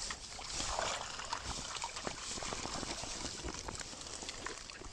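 Water trickling and dripping out of a fishing keepnet as it is lifted from the river and handled, with the wet mesh rustling and small splashes throughout.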